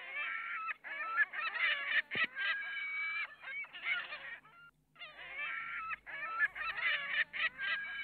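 A flock of flamingos calling: many overlapping honking calls in dense bursts, with a short pause about halfway through.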